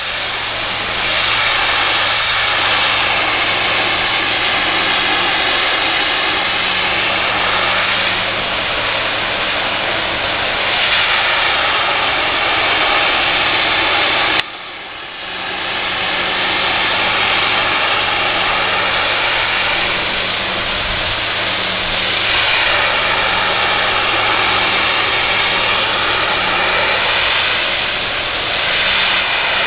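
Pressure washer engine running steadily under the hiss of the high-pressure water spray, the hiss swelling and fading as the spray moves. About halfway through the sound cuts out abruptly, drops, then builds back to the same steady running.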